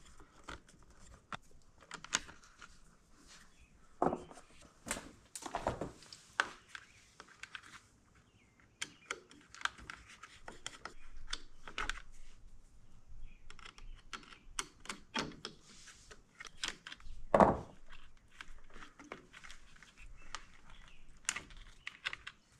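Hand screwdriver working small screws out of the Honda Motocompacto's plastic headlight housing, with irregular light clicks and scrapes and a few louder knocks of hard plastic being handled.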